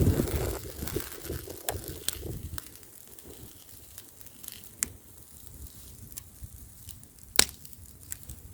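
Wood bonfire crackling with scattered sharp pops, one louder pop near the end. A gust of wind rumbles on the microphone at the start and dies away.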